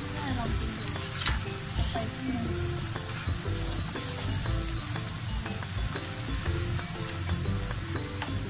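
Minced pork and holy basil sizzling in a nonstick frying pan while being stirred and scraped with a slotted spatula.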